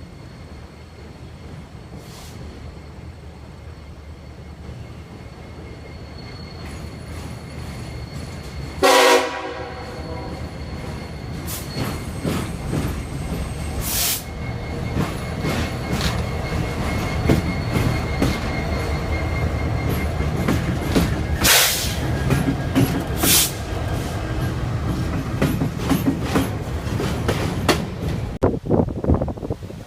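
A train approaching and passing: a rumble that grows steadily louder, one short horn blast about nine seconds in, then wheels rolling over the rails with sharp clanks.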